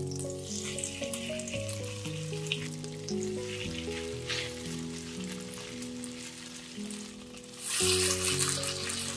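Food sizzling in hot oil in a frying pan. The sizzle starts at once and surges louder about eight seconds in, over soft background music with a slow melody.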